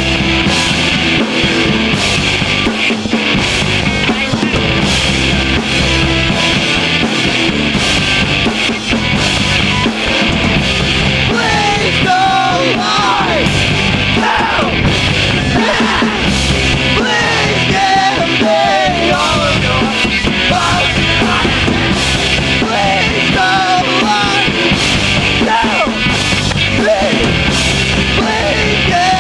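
Punk rock band playing live at full volume: drum kit pounding under distorted electric guitars, with a bending melodic line riding on top from about twelve seconds in.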